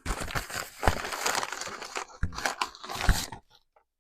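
Packaging bag crinkling and rustling as it is handled and rummaged through, with a couple of sharper crackles, stopping about three and a half seconds in.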